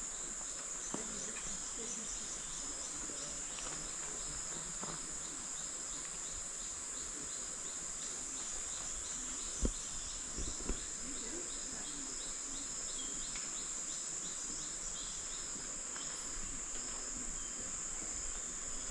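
Jungle insect chorus: a steady high-pitched drone, with a second call pulsing about three times a second that fades out near the end. Two short knocks come about halfway through.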